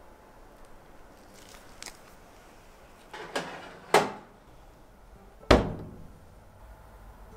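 A baking tray is pushed onto the rack of a countertop oven with a scrape, a clatter and a sharp metal knock. A second or so later the oven's drop-down door shuts with a loud thud.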